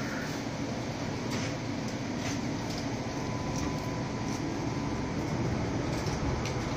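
Melbourne tram in motion, heard from inside the passenger saloon: a steady running rumble with scattered light clicks and a faint steady whine through the middle.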